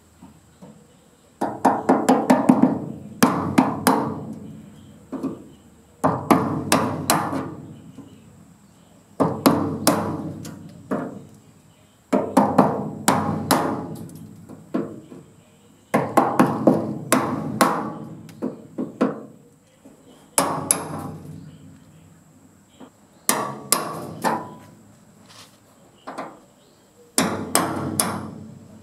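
Hammer blows on a chisel held against pop rivets, in about eight groups of several quick strikes a few seconds apart, each with a short metallic ring: the rivet heads being knocked off.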